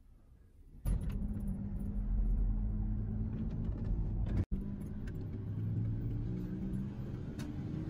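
Car interior noise while driving: a steady low engine and road rumble inside the cabin that starts abruptly about a second in and cuts out for an instant about halfway through.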